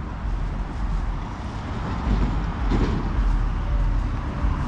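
Uneven low rumble of wind buffeting the microphone of a handheld camera outdoors, with a faint hiss of outdoor background noise above it.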